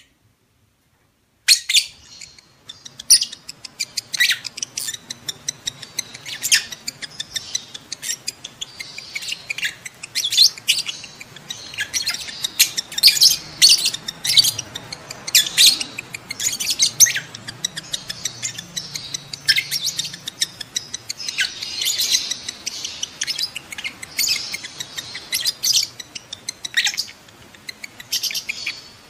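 Lovebirds chattering in breeding condition: a rapid, continuous string of short, shrill chirps and squawks that starts about a second and a half in.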